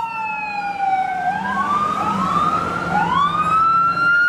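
Police car siren wailing: a long tone sliding down, then rising again from about a second in, with other rising sweeps overlapping it until about three seconds in, over a low hum.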